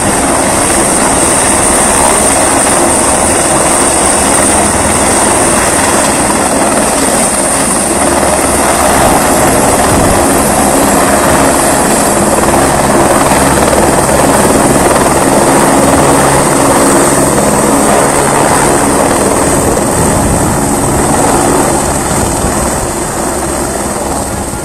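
Helicopter hovering low over water to fill a slung bucket: a loud, steady rotor beat with a constant high whine. Near the end it climbs away and the sound eases off slightly.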